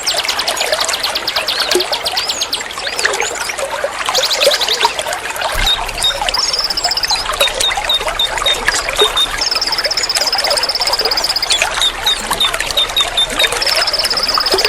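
Several songbirds singing at once over steadily trickling water: rapid trills, runs of short repeated chirps, and a few long buzzy trills held for a second or more.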